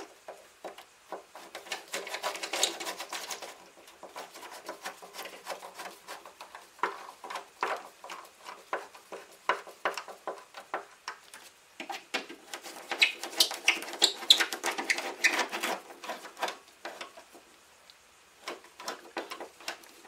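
Irregular light clicks, taps and scrapes of hand work as a wired receptacle is pushed back into a metal wall electrical box and fastened there.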